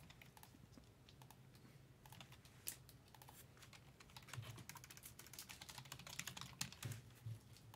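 Faint typing on a computer keyboard: a quick patter of key clicks, sparse at first and busiest in the second half.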